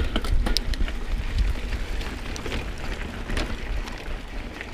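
Mountain bike rolling along a dirt trail: wind rumbling on the microphone over the crunch of tyres, with scattered clicks and rattles from the bike.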